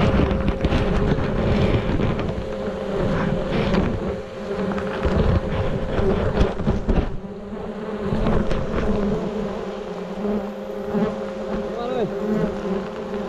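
A swarm of bees buzzing close to the microphone: a steady hum with single bees swooping past in rising and falling whines, over rustling and light knocks from handling.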